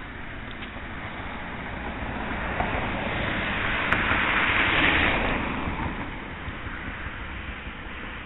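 A car passing by: its tyre and road noise swells over a few seconds, peaks about halfway through, then fades away.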